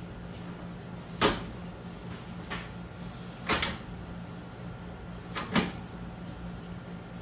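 Three sharp clunks about two seconds apart as a replacement radiator for a Jeep Cherokee XJ is pushed down and seated into its mounts.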